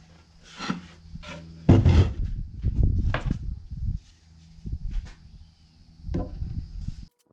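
Staples being driven into wood framing with a crown stapler: several sharp shots and knocks of the lumber, the loudest about two seconds in, over a steady hum. The sound cuts off suddenly near the end.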